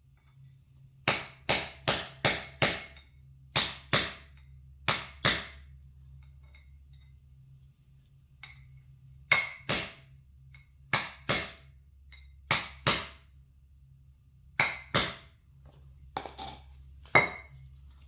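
A hammer tapping an old bushing used as a driver to press a new bushing into an ATV hub. About twenty sharp taps, mostly in quick pairs with pauses between.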